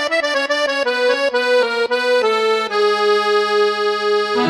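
Instrumental intro music: a quick run of melody notes settles into one held note, and a fuller, lower chord comes in near the end.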